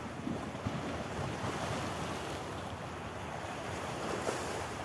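Sea waves washing at the shoreline, with wind rumbling on the microphone.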